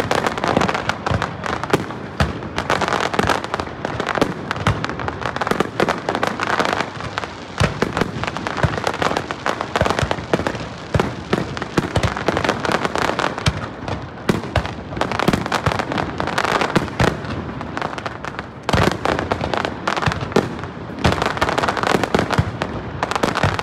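Aerial fireworks bursting in a dense barrage: many sharp bangs and crackles a second, overlapping one another with no break.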